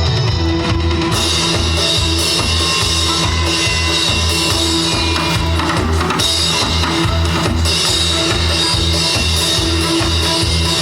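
Music: an instrumental stretch of a trot song with no singing, a drum kit and bass keeping a steady beat of about two bass-drum hits a second.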